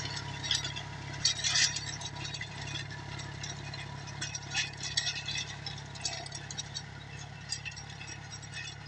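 Tractor engine running steadily as it pulls a disc bed-former through dry, stony soil, with rattling and clinking from the implement and the stones. The sound grows slightly fainter as the tractor moves away.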